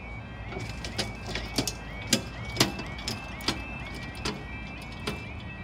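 Level crossing warning alarm sounding: a rapidly repeating electronic yelping tone, several pulses a second. Scattered sharp clicks and knocks sound over it, with a low steady rumble underneath.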